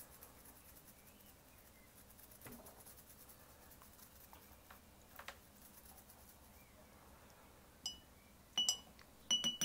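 Toothbrush bristles faintly scrubbing a small circuit board to clean off flux with alcohol. Near the end come a few sharp, ringing clinks of the toothbrush knocking against a glass jar.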